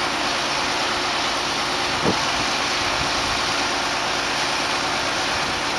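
Marine travel lift's engine running steadily as the lift hoists a sailboat out of the water in its slings, with one short knock about two seconds in.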